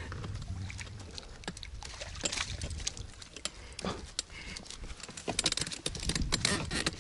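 Irregular clicks, taps and rustling from handling a freshly landed crucian carp and the float-fishing tackle, with a cluster of quick clicks near the end.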